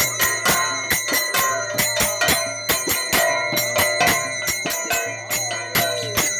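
Music of bells struck rapidly and regularly, about four strikes a second, their high tones ringing on over a low steady drone.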